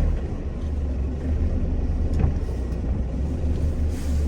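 GAZelle Next van's engine running under load with a steady low drone as the van accelerates to take a run-up after getting stuck in snow.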